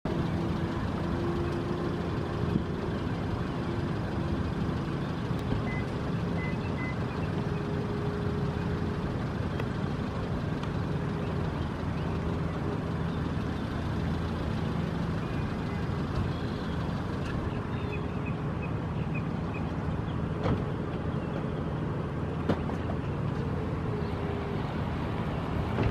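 Steady low rumble of a motor vehicle's engine running, with a steady hum under it. Three short high beeps come about six seconds in, and a quick run of faint high chirps around seventeen seconds in.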